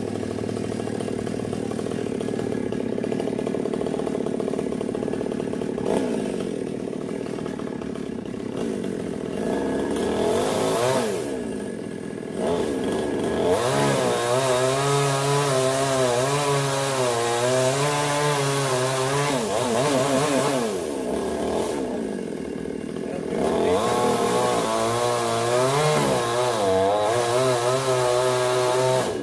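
A two-stroke chainsaw runs at low speed, then is revved high twice for several seconds at a time, its pitch wavering as it cuts into a sonokeling (Indian rosewood) trunk. It drops back briefly between the two cuts.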